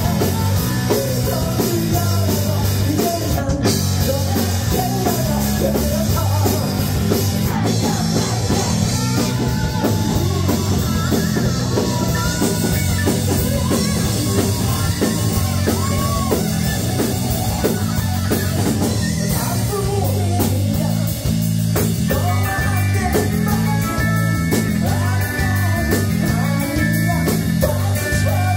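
Rock band playing live: a lead singer sings into a handheld microphone over electric bass and drums with a steady beat.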